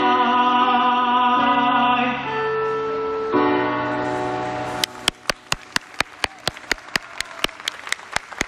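Final held chords of a song's backing music, with a man's voice holding the last sung note, ending about five seconds in. Then steady clapping close by, about four claps a second, over faint applause.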